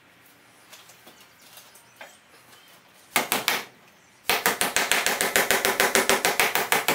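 Hammer striking the steel frame of a car's dashboard crash pad: a few sharp metallic blows, then a fast, even run of taps at about nine a second. The steel is being knocked up at a corner that sits too low to fit the dash.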